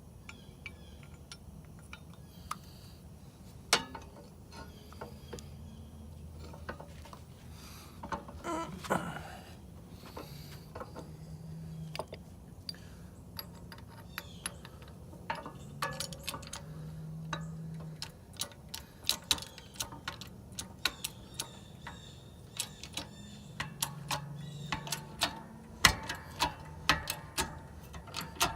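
Irregular metallic clicks and knocks from a 6-ton ball joint press and the steel parts being worked as a ball joint is pressed into an ATV A-arm. The clicks come more thickly in the second half, with the loudest knock near the end.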